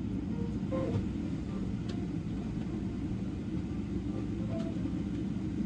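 Steady low rumble inside the cabin of a Boeing 777-300 taxiing after landing, made up of engine noise at taxi power and the cabin air system.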